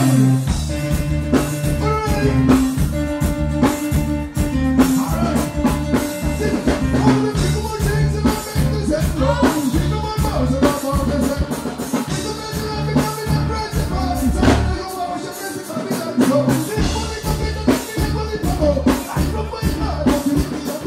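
Live reggae band music: a man sings into a microphone over a steady drum beat and bass.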